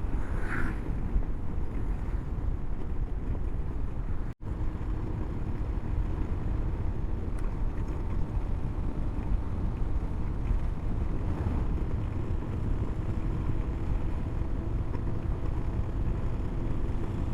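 Honda CB500X parallel-twin engine running under way, mixed with a steady low rumble of wind and road noise. The sound cuts out for a split second about four seconds in.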